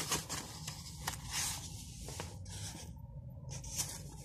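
Pages of a storybook being handled and turned: paper rustling and rubbing in short bursts, with a couple of light taps, about a second in and near the end.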